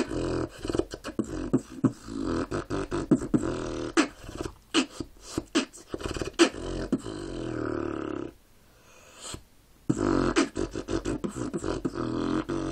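Dubstep beatboxing by mouth alone, without a cup: a sustained bass vocal sound punctuated by many sharp percussive hits. It breaks off for about a second and a half about two-thirds of the way in, then resumes.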